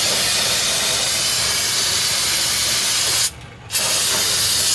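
Aerosol can spraying cleaner in a steady hiss onto a greasy drum-brake backing plate. It stops briefly about three seconds in, then sprays again.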